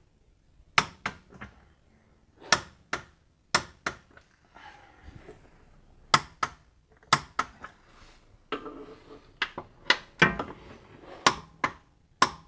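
A torque wrench ratcheting and clicking as nuts are tightened toward 81 ft-lb: sharp clicks in small groups of two to four, every second or so.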